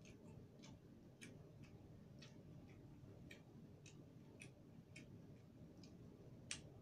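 Faint, light ticking at a fairly even pace of about two ticks a second in a quiet room, with one sharper click near the end.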